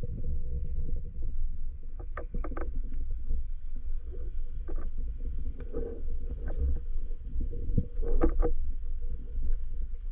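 Underwater ambience picked up by a camera in its waterproof housing: a steady low rumble of water moving past the housing as the diver swims, with scattered sharp clicks and crackles, a cluster about two seconds in and another about eight seconds in.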